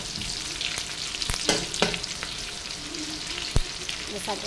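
Sliced onions sizzling in hot rendered pork fat in a wok, with the spatula knocking against the pan several times.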